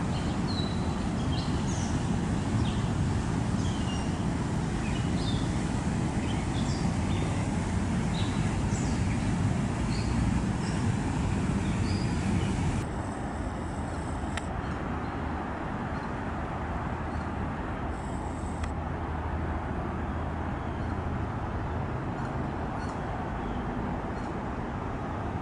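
Songbirds chirping in many short, high calls over a steady low background rumble. About halfway through, the chirping mostly stops and the rumble becomes a little quieter and duller.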